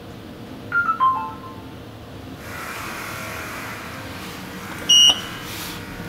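Elevator car signals in an Otis 2000 freight lift: a short electronic chime of descending notes about a second in, then a steady rushing noise as the car runs, and one short high beep near the end.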